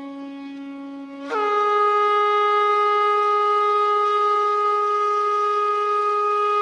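A horn blast at the start of an instrumental backing track: a low held note that steps up to a higher, louder note about a second in and holds steady.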